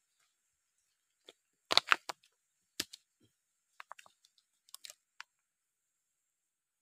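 Scattered crackles and snaps of dry palm fronds and twigs underfoot. The loudest cluster comes about two seconds in, then a run of small, light ticks.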